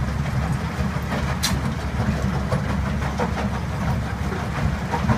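RESTA mobile concrete crusher running under load: a steady, heavy low rumble of the machine, with scattered clatter of broken concrete and one sharp knock about one and a half seconds in.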